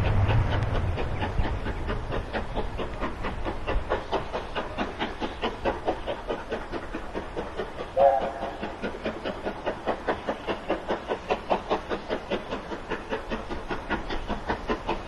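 A steam-hauled train passing: a low rumble fades over the first couple of seconds, then the carriages' wheels click over the rail joints in a steady rhythm of about three or four clicks a second. A short pitched toot sounds about eight seconds in.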